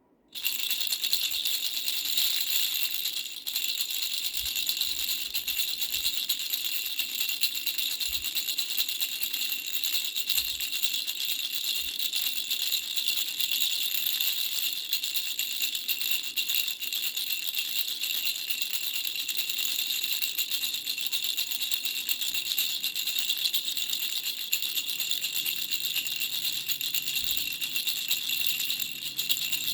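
Baby rattle shaken continuously, a dense steady bright rattling with a brief dip about three seconds in.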